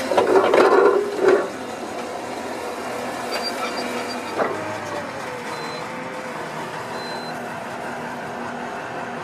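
Engine of a tracked drainage plough running steadily under load, louder and rougher for the first second and a half. A few faint, brief high beeps sound in the middle.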